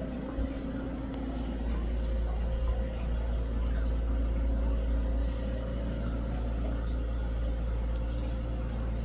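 A running motor: a steady low rumble with a faint steady hum, getting a little louder about two seconds in.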